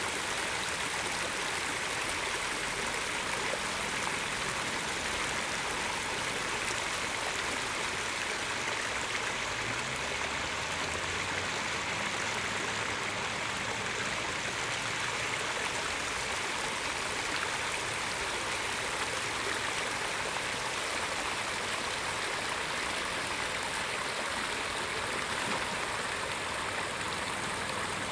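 Shallow stream rushing over small rock ledges and cascades: a steady, even rush of water.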